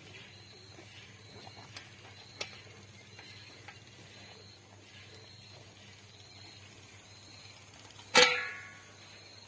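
Gir cow eating wet mashed feed from a plastic tub, with a few soft knocks and ticks, while an insect chirps at a steady pace, about once a second. About eight seconds in comes one loud sudden knock with a short ringing tail.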